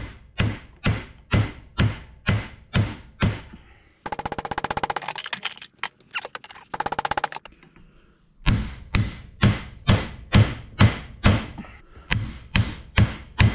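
Steel hammer blows on an old punch, driving a tight pin into a VW Beetle front-beam part held in a vise, at about two blows a second. In the middle there is a few-second run of much faster clattering, then the steady blows resume.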